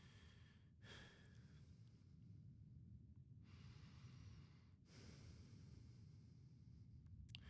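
Near silence: low room tone with a few faint, soft breaths, the longest from about three and a half to five seconds in.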